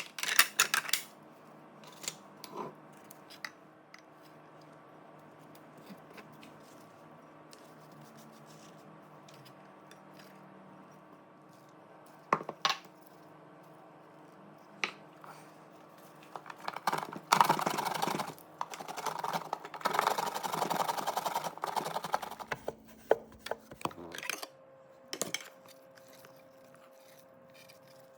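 Kitchen utensils and dishes clinking and knocking while drink ingredients are handled, with scattered single knocks. A busier, louder stretch of clatter lasts about five seconds, starting a little past halfway.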